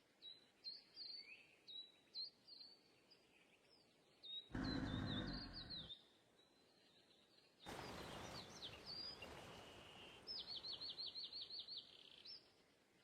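Small birds chirping in short, quick notes, with a rapid trill of about eight notes near the end. Two brief louder rushes of noise cut in around the middle; the first of these is the loudest sound.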